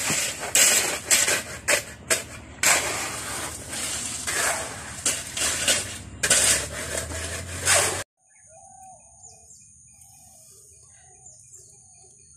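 Rakes and a screed board working wet concrete and stone on a road slab: a loud, rough scraping and clattering with sharp knocks, which cuts off abruptly about eight seconds in. After that, birds call quietly over a steady high whine.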